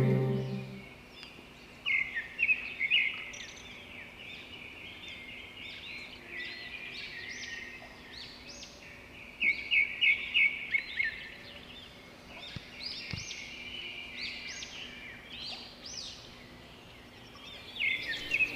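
Wild birds chirping and calling, with quick runs of short high notes about two seconds in and again around ten seconds in.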